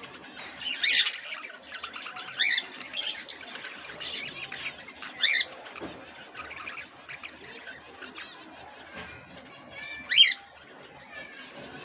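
Many caged budgerigars and finches chattering together in a fast, continuous twitter, with louder sharp calls standing out about a second in, at two and a half, at five, and near ten seconds.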